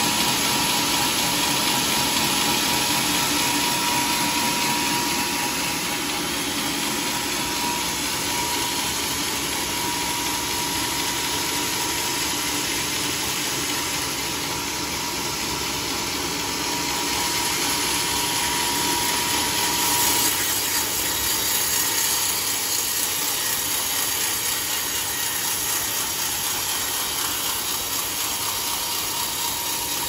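Sawmill bandsaw running and ripping a teak log, a steady loud whine and hiss of blade in wood. A high steady hum drops out about two-thirds of the way through and the hiss changes.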